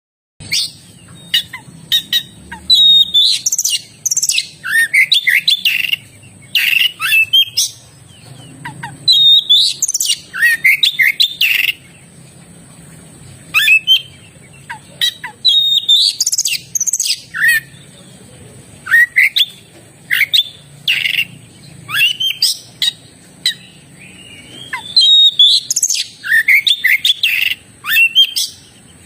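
Oriental magpie-robin (kacer) singing vigorously: loud bursts of varied whistles and chirps, many sliding down in pitch, repeated every second or two.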